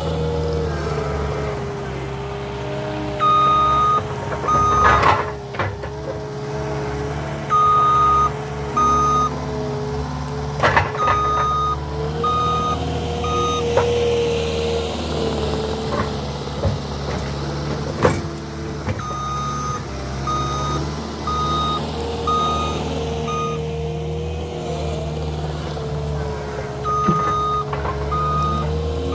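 A Cat 289D compact track loader's diesel engine runs under working load, its pitch rising and falling as the machine moves. Several runs of its backup alarm's steady beep-beep come as it reverses, and a few sharp knocks sound over the engine, the loudest about two-thirds of the way through.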